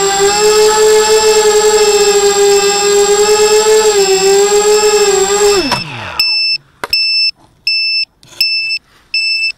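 Brushless motors of a ZMR250 FPV quadcopter (DYS 1806 2300KV with 5×3 props) humming steadily in flight, then winding down to a stop about six seconds in as the quad lands in grass. After that a short high electronic beep repeats about twice a second from the quad.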